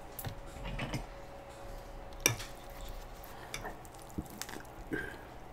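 A metal fork tapping and scraping on a griddle while noodles are stirred and lifted, with a few sharp clicks, the sharpest about two seconds in, amid soft wet food-handling sounds.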